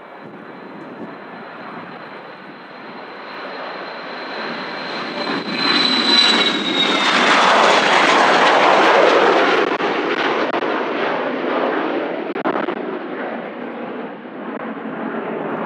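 Dassault Falcon 2000EX business jet's twin turbofans passing on arrival: a high whine that drops slightly in pitch as the jet goes by, under an engine rush that builds, peaks about halfway through and then fades.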